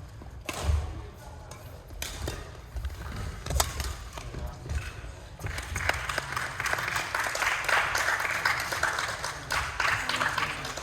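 Badminton rally: sharp racket strikes on the shuttlecock and thuds of footwork on the court. From about halfway a denser run of noise with many quick clicks builds.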